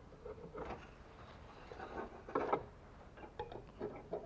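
Short clicks and clinks of a hand tool working on metal, loudest about two and a half seconds in, as the two bolts holding the lower timing belt cover are undone.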